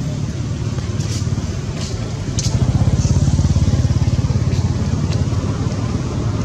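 A motor vehicle engine running close by, a steady low rumble that swells louder for a couple of seconds in the middle. A few faint ticks sound over it.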